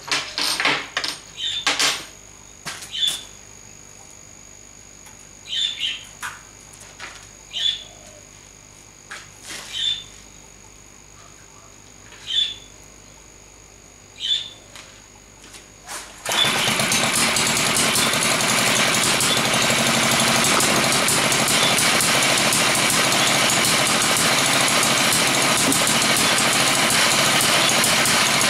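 Villiers Mk10 two-stroke engine being spun over at the flywheel: a string of short bursts for about sixteen seconds, then it catches abruptly and runs steadily and loud with a rapid, hard firing that sounds like bullets.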